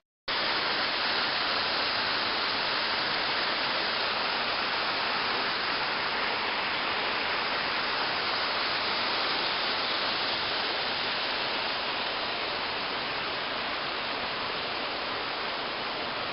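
A waterfall's steady rushing, a full even roar of falling water. It cuts in after a split-second gap at the very start.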